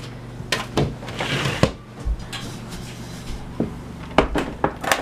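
Scattered sharp knocks and clicks, about nine in all, bunched near the start and near the end, over a steady low hum, with a brief hiss about a second in.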